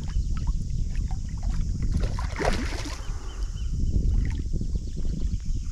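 Water splashing and lapping against the side of a canoe as a hooked rainbow trout is worked into a landing net, with a louder splash about two and a half seconds in. A low rumble of wind on the microphone runs underneath.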